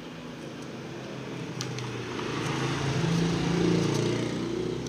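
A motor vehicle's engine passing by, growing louder to a peak about three and a half seconds in and then easing off. A few light clicks of plastic toy dishes being handled sound over it.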